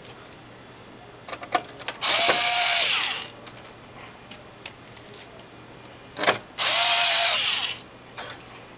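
Cordless electric screwdriver driving screws into the stand's mounting plate on the back of an LCD monitor: two runs of about a second each, the motor whine rising, holding and dropping away, with a few clicks as the bit is set in the screw before each run.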